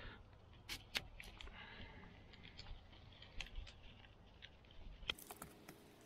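Faint handling of a multi-pin plastic wiring connector and its corrugated plastic loom sleeve: scattered light plastic clicks and rustles, with a brief scrape near the end.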